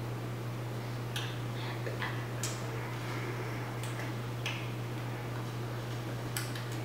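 Steady low electrical hum, with soft clicks and taps at irregular intervals from the hands and mouths of people signing.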